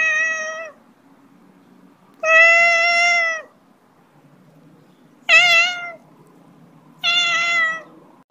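A cat meowing four times, about two seconds apart, with long drawn-out meows, the second the longest.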